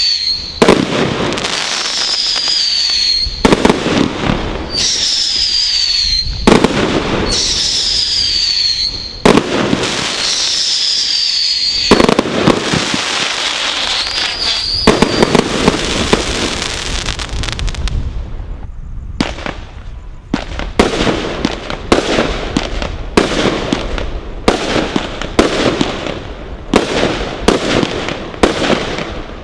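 Brothers 'The God Father' multi-shot firework going off. In the first half, shots come every couple of seconds, each with a high whistle falling in pitch, over steady crackling. From about two-thirds of the way in, it turns to a quick string of sharp bangs.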